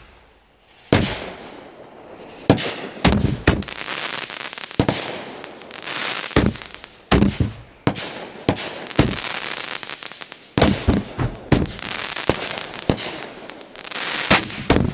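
Consumer aerial fireworks going off overhead: about twenty sharp bangs of bursting shells, irregularly spaced and starting about a second in, with a noisy hiss of sparks between them.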